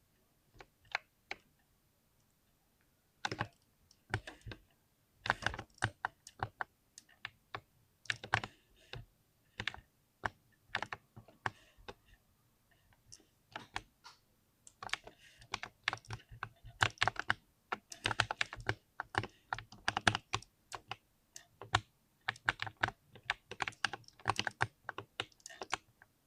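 Mechanical keyboard with lubed switches being typed on, a creamy clacking of irregular keystrokes. The keystrokes are sparse at first and come much faster and denser from about halfway through.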